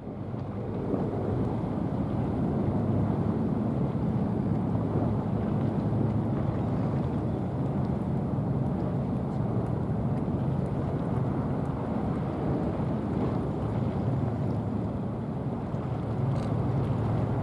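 Steady low rumble of a boat's engines over water, with wind buffeting the microphone.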